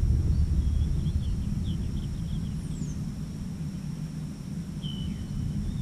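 Low rumble of wind on the camera microphone, with a quick run of faint bird chirps in the middle and a thin, steady high insect whine.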